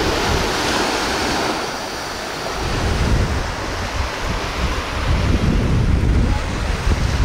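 Small surf washing up onto a sandy beach, a steady hiss. From about two and a half seconds in, wind buffeting the microphone adds a low rumble.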